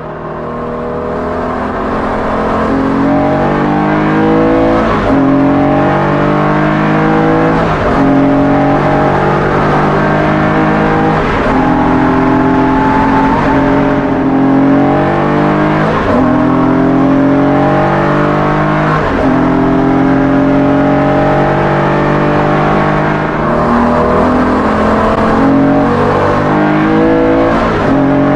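Porsche 964's 3.8-litre air-cooled flat-six on individual throttle bodies, revving hard. The pitch climbs through each gear and drops sharply at each gear change, about seven times. It fades in over the first couple of seconds.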